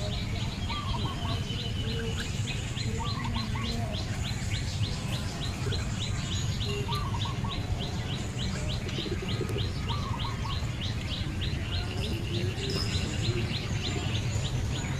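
Birds chirping outdoors: an even, rapid series of short high chirps, about five a second, with a few brief lower chirping phrases every few seconds, over steady low background noise.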